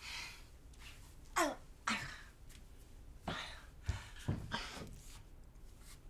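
A person's breathy sighs and exhalations, two of them short and falling in pitch about a second and a half in, with a soft knock near the middle.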